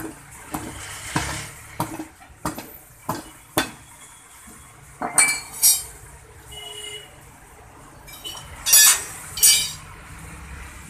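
A hammer striking a small steel car wheel and its tyre by hand, as done to break the tyre bead during a tyre change: about seven sharp metallic blows in the first four seconds. This is followed by a few louder clanks and rattles of steel tools.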